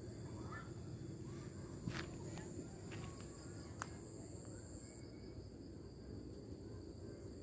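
Insects trilling steadily at a high pitch over a low background rumble, with three light clicks between about two and four seconds in.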